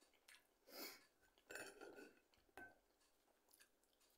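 Faint eating sounds: a metal fork picking food off a plate, with a few short soft scrapes and one sharp click about two and a half seconds in.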